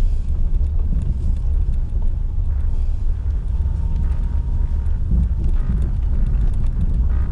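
Low, steady rumble of a vehicle driving slowly over a rough dirt track, heard from inside the cabin.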